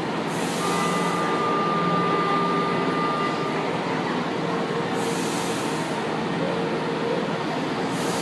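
São Paulo Metro Line 1 train (fleet I) moving slowly through the station: a steady rumble with a thin whine for the first few seconds. Brief hisses come near the start, about five seconds in and again at the end.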